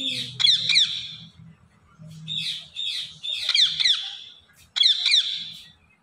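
Indian ringneck parrot giving several short bursts of rapid chirping, squawky calls, each made of quick falling notes, with brief pauses between the bursts.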